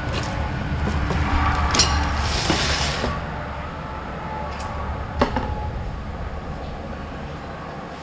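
Metal trailer-hitch hardware being handled: a few sharp clicks and knocks, the loudest about five seconds in, with a brief rustle about two and a half seconds in, over a low steady hum.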